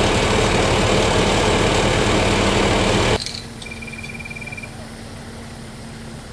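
Fire engine's engine running loud and steady, driving its water pump to feed the hoses. About three seconds in it cuts abruptly to a much quieter steady hum, with a brief run of fast high beeps shortly after.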